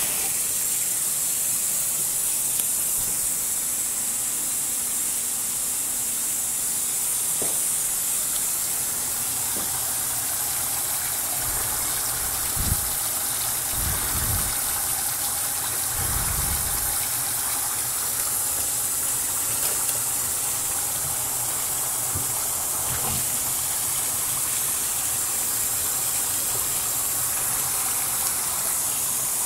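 Dry ice bubbling in water, a steady hissing gush as it gives off fog. A few brief low bumps come around the middle.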